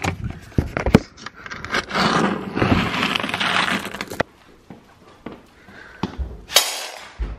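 A plastic scoop digging into dry dog kibble in a plastic bin, the pellets rattling and crunching against each other. Near the end comes a short, loud rattle as the scoop of kibble is poured into a dog bowl.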